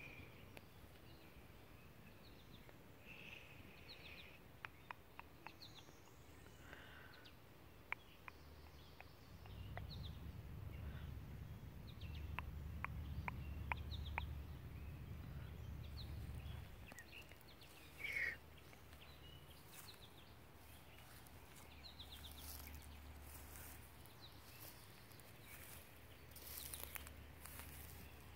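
Faint outdoor ambience with scattered bird chirps, light clicks and brushing noises close to the microphone, and a low rumble that comes and goes.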